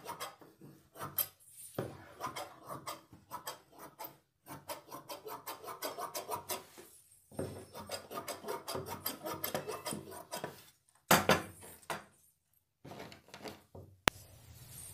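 Large tailor's scissors cutting through layered blouse-lining fabric on a wooden board: a quick, steady run of snips with the blades scraping on the board. A louder knock comes about eleven seconds in.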